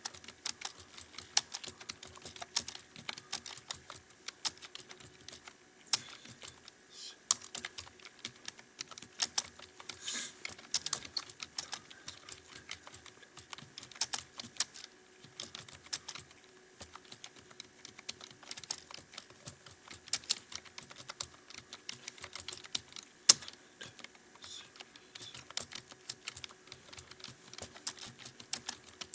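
Computer keyboard being typed on continuously: a fast, uneven run of key clicks with now and then a sharper, louder clack.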